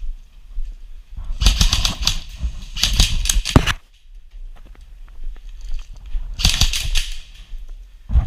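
Airsoft electric rifle firing three short full-auto bursts of rapid snapping shots, the middle two close together and the last a few seconds later.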